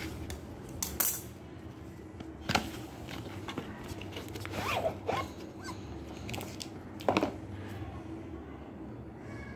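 Cardboard packaging handled and opened by hand: a white sunglasses box pulled from its wrapper and its flaps and inner tray slid open, with a few sharp knocks, about a second in, halfway through and near the end, and a couple of short squeaky cardboard scrapes in the middle.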